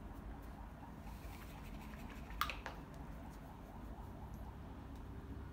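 Soft, repeated scratching of a paintbrush stroking acrylic paint onto a canvas, with one sharp tap about two and a half seconds in.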